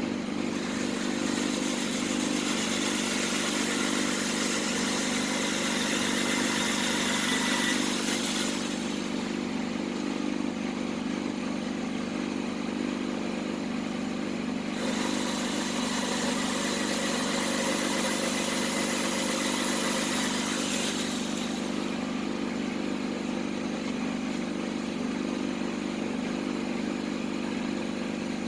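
Power drill running in two long stretches, about eight and six seconds, boring holes in a Candy washing machine's plastic tub for screws, over a steady low hum.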